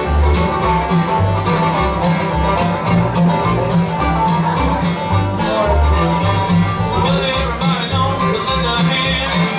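Bluegrass band playing an instrumental passage with banjo, fiddle, acoustic guitar and upright bass, the bass plucking a steady beat underneath.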